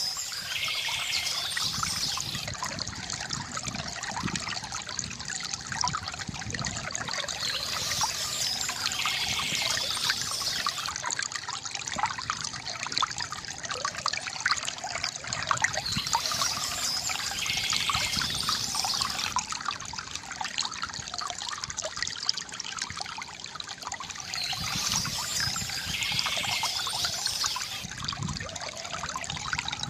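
Small stream trickling and babbling steadily over stones. A songbird's short song comes back about every eight seconds over the water.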